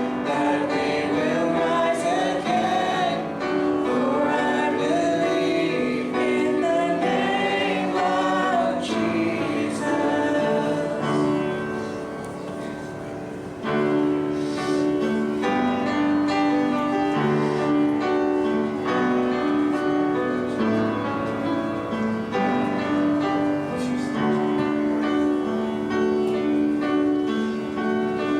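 Worship music: voices singing with instrumental accompaniment, briefly quieter a little before halfway.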